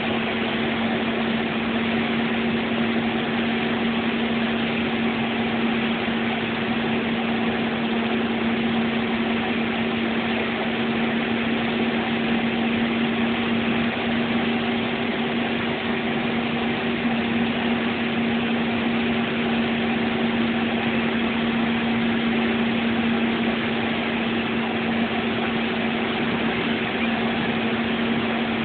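Bus engine and road noise heard from inside the cabin while it cruises at a steady speed: a constant drone with an unchanging hum.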